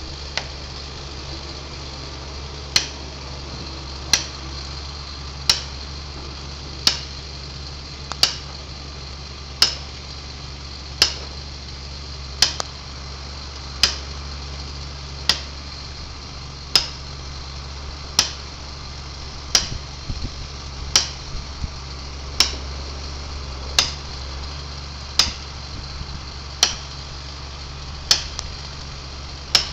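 Sharp hammer blows, about one every second and a half, some twenty in all, each with a short ring: a feller driving a felling wedge into the cut. A low steady hum runs underneath.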